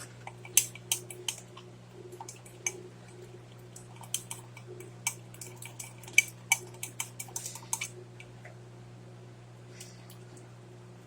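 A fork clinking and scraping against the inside of a mug while stirring pancake batter, in quick irregular taps that stop about eight seconds in, over a steady low hum.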